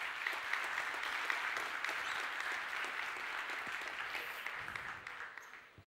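Audience applauding at the close of a talk: a steady spread of many hands clapping that cuts off suddenly near the end.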